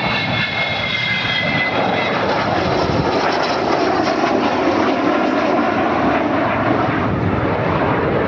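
Avro Vulcan XH558 bomber's four Rolls-Royce Olympus jet engines on a low pass. High whistling tones fall in pitch over the first two seconds as it goes by, then a loud, steady jet roar.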